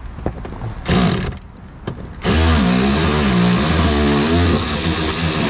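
Red cordless power driver spinning a long extension to back out a dash-retaining bolt at the base of the windshield. A brief run about a second in, then a longer run from about two seconds in, its motor pitch wavering as the bolt loads and frees.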